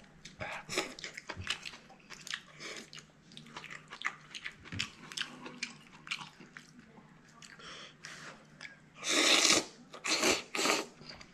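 A man chewing and slurping spicy seafood ramen noodles with chopsticks, with a run of short wet mouth smacks and clicks. Near the end come three loud slurps in quick succession.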